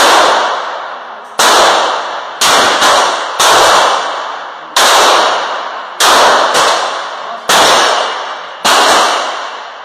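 Semi-automatic pistol fired about ten times at an uneven pace, roughly a second apart with two shots in quick succession about two and a half seconds in, each shot ringing out in the echo of an indoor range.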